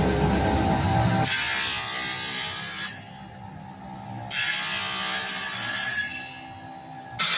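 A woodworking tool working wood in three bursts, each about a second and a half long with short pauses between, after background music at the start.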